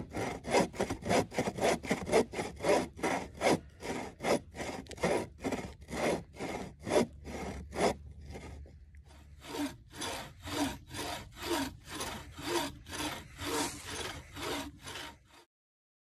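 Homemade bushcraft buck saw cutting through a tulip poplar log with steady back-and-forth strokes, about two a second. The strokes break off briefly about eight seconds in, then resume and stop abruptly near the end.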